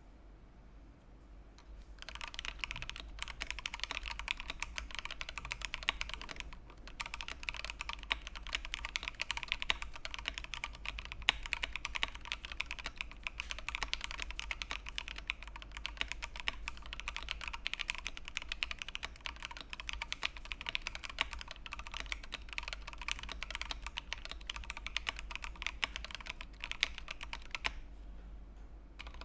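Fast continuous typing on an Akko MOD-series gasket-mount aluminium mechanical keyboard with Akko switches, a rapid stream of key clacks that starts about two seconds in, pauses briefly, and stops near the end. The typing still has a somewhat hollow sound despite the plate and case dampening foam.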